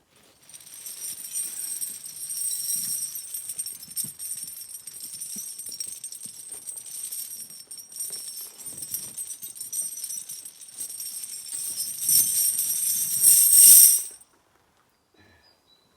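Background music with jingling bells and tambourine over a light beat, loudest near the end, then cutting off abruptly about two seconds before the end.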